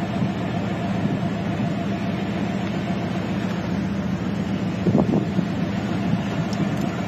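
Steady low hum of a stopped vehicle's engine idling.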